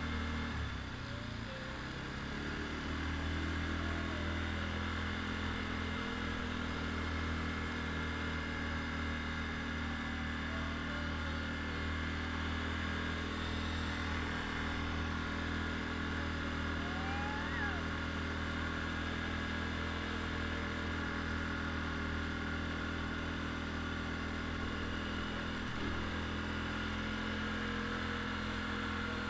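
ATV engine running steadily at cruising speed while riding over sand. The engine note drops about a second in, climbs back up as it picks up speed, then holds steady.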